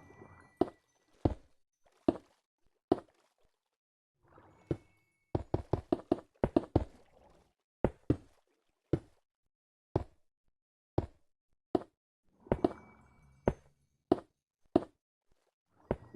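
An irregular series of sharp knocks and taps: a quick run of several a second in the middle, then single knocks about a second apart.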